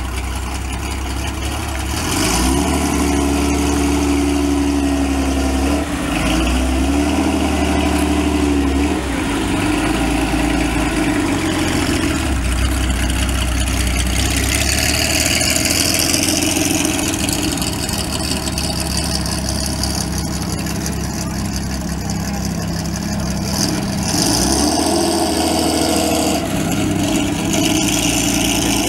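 Ferrari Berlinetta Boxer's flat-twelve engine running as the car pulls away at low speed, its pitch rising and falling several times with the throttle.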